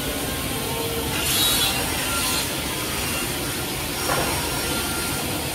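Woodmaster WMS-300 sliding table saw running with a steady whirr from its circular blade, with a brief harsher burst about a second and a half in and a short knock about four seconds in.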